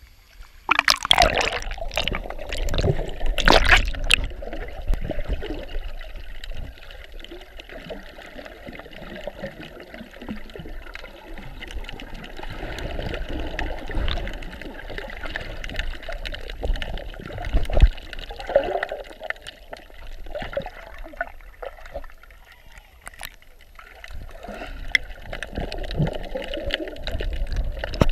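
Sea water splashing loudly around the microphone at the surface for the first few seconds, then the muffled swirl, gurgle and click of water heard with the microphone underwater while snorkelling.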